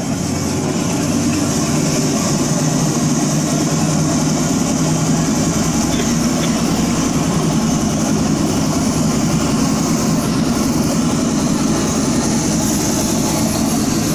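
Loud, steady engine-like drone played over a loudspeaker, fading up just before and then holding without any beat, as the opening sound effect of a dance track.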